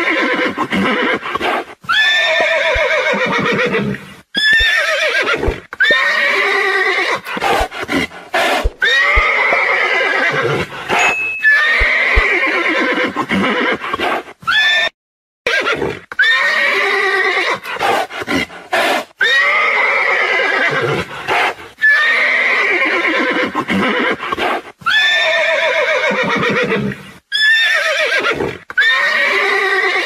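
Horses neighing: a long run of whinnies, one every one to two seconds, each starting high and falling away in pitch.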